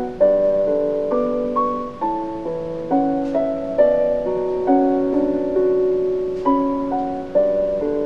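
Slow, gentle piano music: chords and a melody line, each note struck and then dying away before the next.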